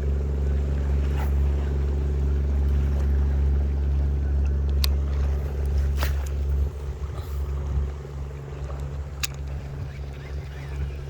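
Small boat engine running with a steady low hum. About six and a half seconds in it drops to a quieter, uneven running. A few sharp clicks are heard over it.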